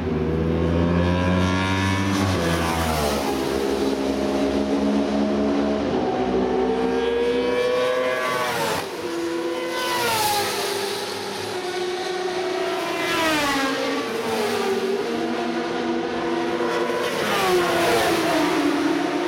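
Sport motorcycle engines at full throttle on a race track's main straight. Their pitch climbs through each gear and drops back at every upshift. Bikes pass close by about ten seconds in and again near the end, each with a falling sweep in pitch.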